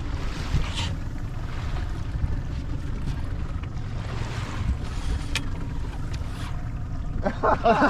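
Wind buffeting the microphone over the noise of the boat and sea, a steady low rumble, with a couple of faint clicks. Near the end a warbling pitched sound starts.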